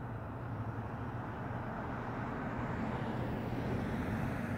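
Steady low hum of a nearby motor vehicle, growing a little louder in the second half.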